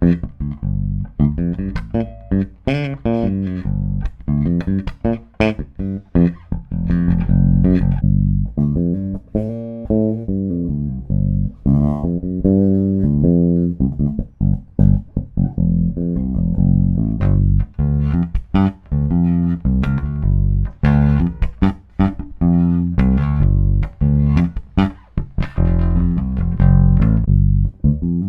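Yamaha BB414X four-string electric bass played fingerstyle, a continuous run of plucked notes and lines with sharp attacks and deep low end.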